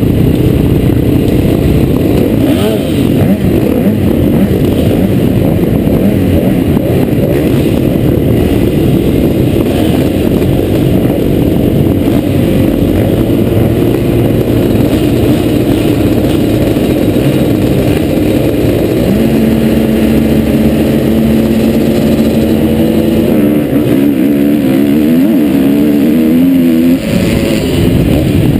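Motocross bike engines running at the start gate, revved and blipped while waiting; about two-thirds of the way through one engine is held at a steady high rev, then its revs rise and fall, and near the end it is opened up as the bike launches off the line.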